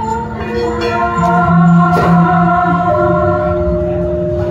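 Javanese gamelan music with a sinden (female singer) singing a classical tembang in long, held notes. There is one sharp knock about two seconds in.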